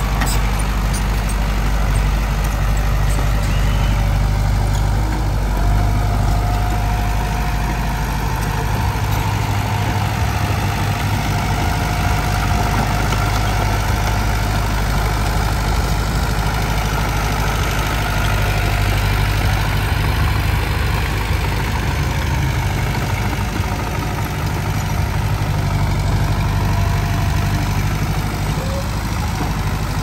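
Komatsu D20P bulldozer's diesel engine running steadily, with a faint whine that comes and goes.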